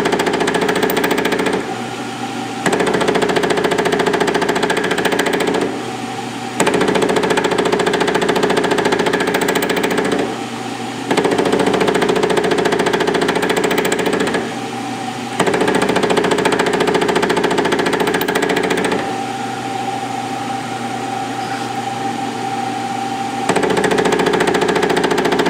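Milling machine running with an offset boring head that sweeps its cutter around a ½-inch steel drill-rod cam blank, cutting the cam profile. There are steady motor and spindle noise and a hum. The sound swells into a louder cutting chatter for three to four seconds at a time, five times, dropping back between passes, with a longer quieter stretch near the end.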